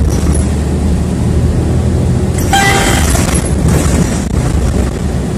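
City bus running, its engine a steady low rumble, with one short high tone and some clatter about two and a half seconds in.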